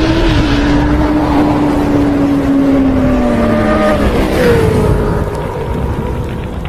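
Motor vehicle engine running, its pitch slowly falling, then jumping higher about four seconds in and easing down again.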